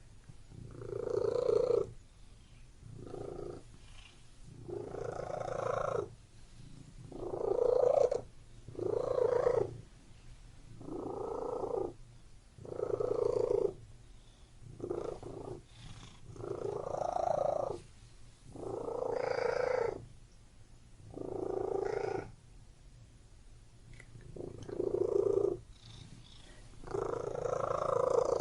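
Domestic cat purring, a continuous low rumble that swells louder with each breath, roughly once every two seconds.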